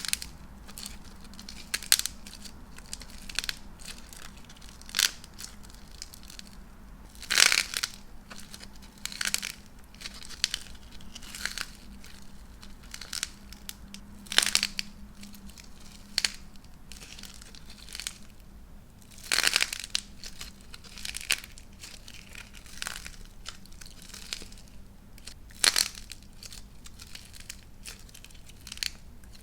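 Star-shaped dried clay being broken up, cracking and crumbling in irregular crackles, with a few louder cracks about seven and nineteen seconds in.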